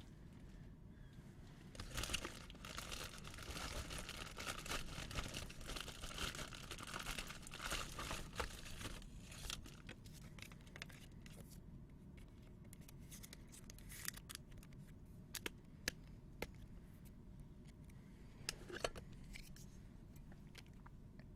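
Wrapper of a trading-card pack being torn open and crinkled for several seconds, followed by scattered light clicks and ticks as the cards are handled.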